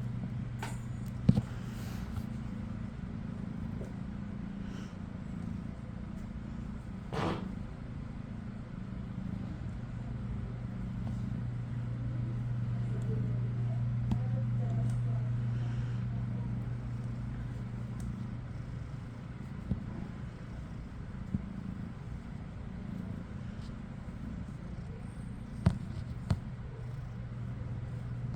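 Steady low mechanical hum, with a few short sharp clicks and taps scattered through it.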